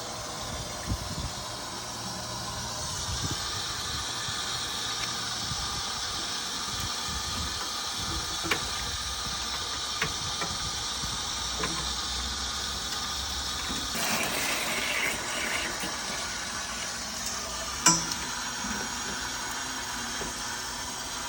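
Water running steadily from the water heater's cold-line service valve through a hose into a bucket, filling it with about a gallon of water for the descaling flush. A few sharp clicks or knocks stand out, the loudest near the end.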